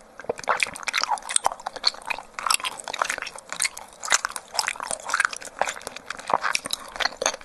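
Close-miked chewing of tapioca pearls from bubble milk tea: a quick, irregular run of wet mouth clicks and smacks.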